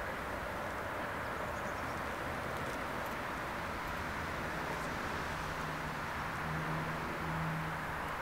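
Distant diesel shunting locomotive hauling tank wagons, a steady rumble with a low engine drone that grows louder in the second half. Faint bird chirps over it.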